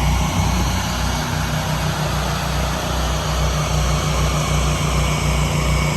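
Pressure washer's engine running steadily, with an even pulsing low throb and a steady hiss over it.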